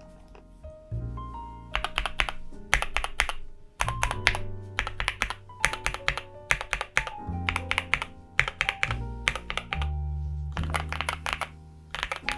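Short runs of quick clicks from keys being pressed on an Epomaker Shadow-X mechanical keyboard, over background music with a steady beat.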